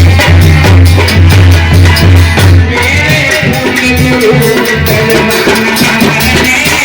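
Loud instrumental music from a Hindi Bhim geet, with a steady dance beat and heavy bass; about three seconds in, the bass eases and a melody line comes in over the beat.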